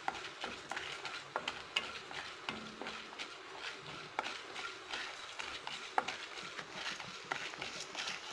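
Mustard seeds, chana dal and urad dal frying in hot oil in a kadai, sizzling with scattered sharp crackling pops while a wooden spatula stirs them.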